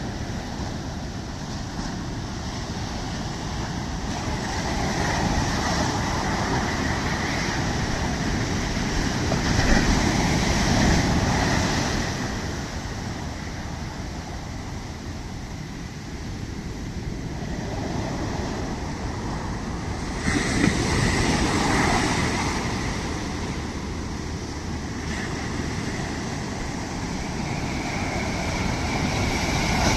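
Sea waves breaking and washing on the shore in a continuous surf, swelling to louder breaks about ten seconds in and again just after twenty seconds.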